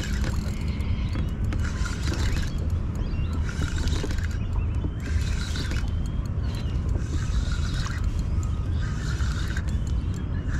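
Spinning fishing reel being wound in repeated short spurts, about one a second, as a hooked fish is brought in, over a steady low rumble.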